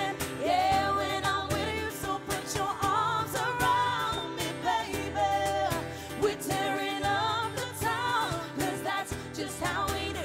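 A woman singing a pop song live into a microphone, holding and sliding between notes, over a band accompaniment with acoustic guitar and a steady bass line.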